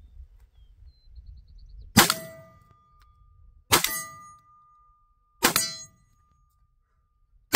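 Four shots from a Beretta 1301 Tactical 12-gauge semi-automatic shotgun, about two seconds apart, the first about two seconds in. Each shot is followed by the steady ring of a hanging steel target being hit, lasting about a second or more.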